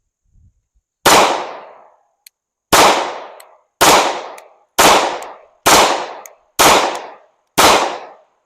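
Seven shots from a CZ P-09 Nocturne 9mm pistol, fired at a steady pace about a second apart, each with a short echoing tail. The pistol cycles through them without the slide-lock malfunction it has been having.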